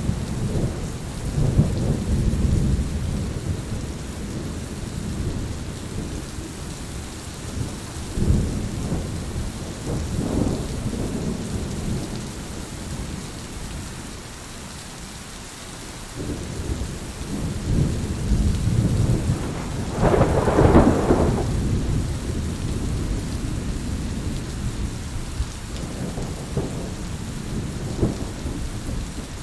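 Steady rain falling, with thunder rumbling again and again underneath, the rumbles swelling and fading every few seconds; the loudest and sharpest thunderclap comes about twenty seconds in.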